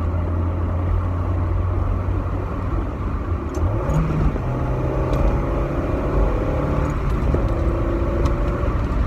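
1.8-litre NA Mazda Miata's four-cylinder engine heard from inside the cabin, running with a steady hum that rises in pitch about four seconds in, over wind noise. No lifter tick is heard: the owner says the ticking is gone after an oil change with Rislone added.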